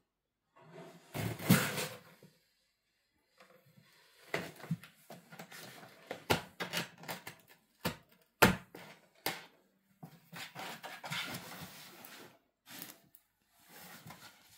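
Long-haired cat moving about inside a cardboard box: irregular scraping and rustling of paws and fur against the cardboard, with a few sharp knocks in the middle.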